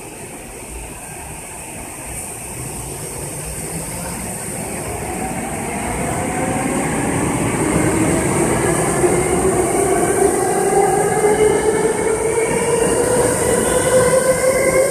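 Saitama Railway 2000-series electric train pulling out of the station. From about five seconds in, its traction motors give a whine made of several tones that rise steadily in pitch as it accelerates, over a growing rumble of wheels on rail, getting louder throughout.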